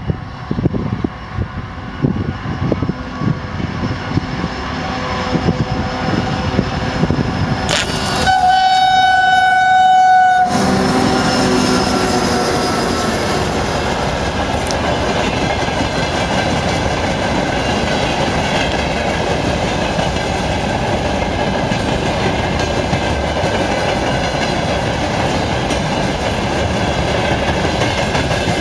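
2TE116 diesel locomotive approaching with wheels clicking over rail joints, then sounding its horn in one steady blast of about two seconds. After that it runs past with a steady loud rumble and rail clatter.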